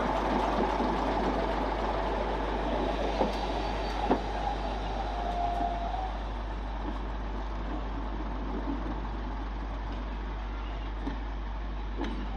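Derby Lightweight diesel railcar M79900 passing by, its diesel engine running with the noise of wheels on the rails and a couple of sharp knocks a few seconds in. The sound eases off a little past the middle as the railcar moves away.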